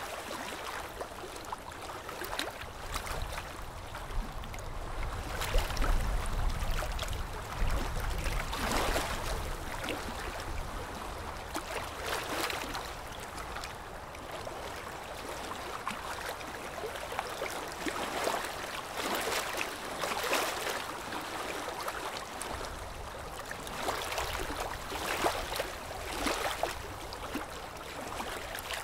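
Ultrasonic dental scaler working tartar off the teeth, its water spray giving a wet hiss and gurgle that swells and fades in irregular bursts as the tip moves from tooth to tooth.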